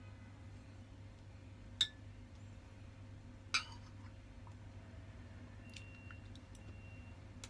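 Cutlery clinking twice against a dish, a sharp tap about two seconds in and another near the middle, the first with a short ring, over a faint steady low hum.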